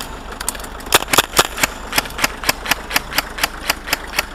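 Airsoft rifle firing a steady string of single shots, about four a second, starting about a second in, with a low vehicle engine idling underneath.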